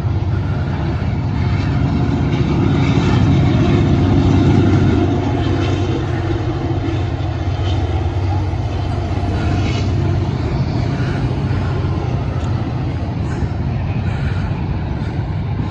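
Diesel locomotives and cars of a passing freight train: a steady low rumble that swells slightly about four seconds in.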